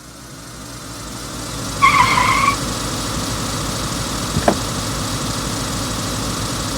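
Car sound effect: a car running, fading in and then holding steady, with a brief high squeal like tyres about two seconds in and a short knock a little after four seconds. It cuts off abruptly.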